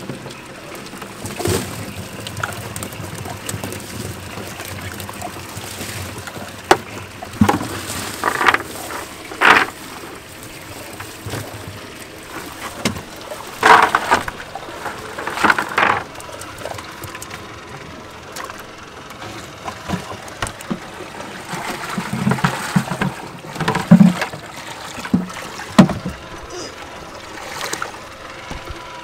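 Live pilchards being shaken out of a cast net into a bucket on a boat deck: a string of sharp rustles, thumps and splashes from the net and the flapping baitfish, over a steady wash of water.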